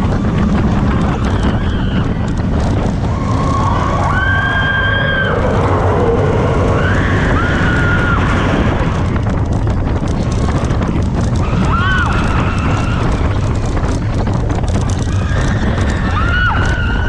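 Expedition Everest roller coaster train running fast along the track, with a steady rumble and wind rush on the microphone. Riders give several long screams over it.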